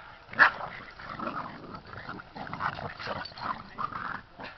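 Boston terrier puppies play-fighting: one sharp yip about half a second in, followed by a string of quieter, short puppy yips and noises.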